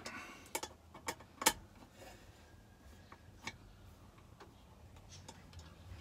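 Hand tools and case screws clicking against the metal crankcase of a Stihl MS460 chainsaw as the case screws are driven in. A few sharp, scattered clicks, the loudest about one and a half seconds in, then fainter taps.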